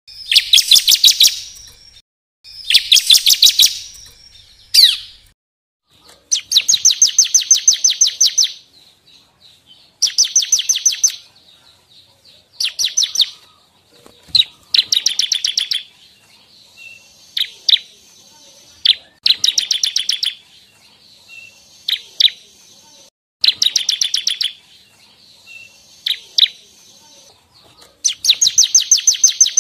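Ciblek (bar-winged prinia) singing: loud bursts of rapid, high, repeated notes about one to two seconds long, coming every couple of seconds, with an odd short single note between bursts.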